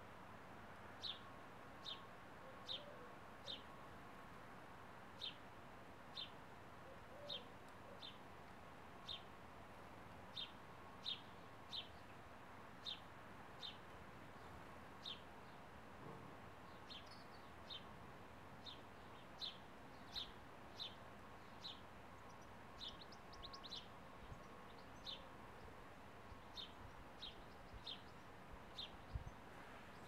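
House sparrow chirping: short single chirps repeated about once a second, with a quicker run of chirps about three-quarters of the way through, over a faint steady hiss.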